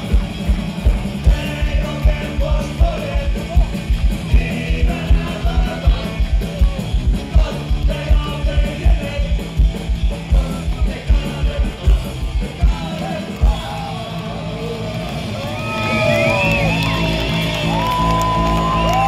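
Punk rock band playing live, with a steady drum beat under electric guitars and singing. About 13 seconds in the drums stop and a final chord rings on, and the crowd starts yelling and whooping.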